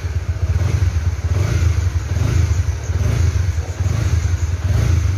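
Honda CB150R's single-cylinder engine running steadily while being warmed up.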